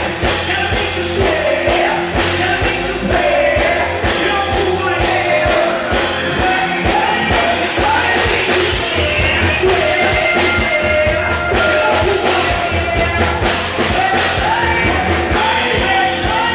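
A rock band playing live: male singers on microphones over electric guitar, bass and drums with a steady beat.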